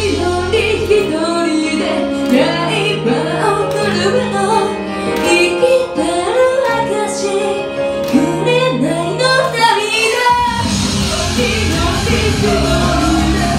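A woman singing into a microphone over a loud backing track. The bass drops out about a second in, leaving the voice over lighter backing, and comes back in full about three seconds before the end.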